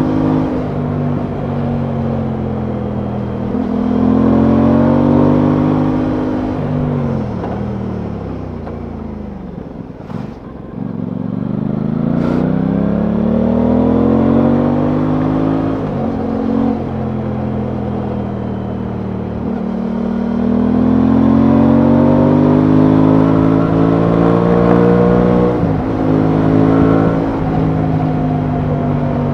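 Aprilia Tuono 660's parallel-twin engine under way on the road: the revs fall away to a low point about ten seconds in, then climb again through the gears, with sharp drops in pitch at upshifts about two thirds of the way in and again near the end.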